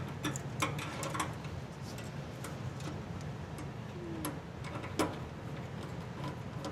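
Scattered light metallic clicks and taps as a hot surface igniter on its bracket is fitted into a furnace's burner compartment, with one sharper click about five seconds in, over a steady low hum.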